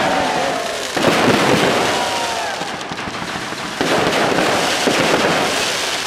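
Fireworks display: aerial shells bursting with dense crackling, a fresh burst about a second in and another near four seconds.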